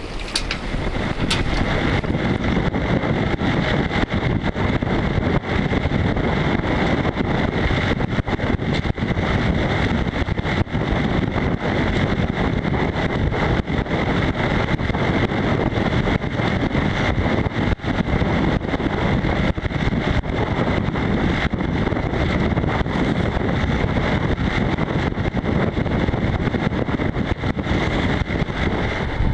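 Strong gusty wind buffeting the microphone aboard a small sailboat in rough, choppy water: a loud, steady rush with constant crackling.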